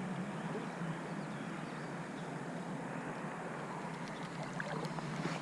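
Steady rushing of flowing river water, with a few faint ticks near the end.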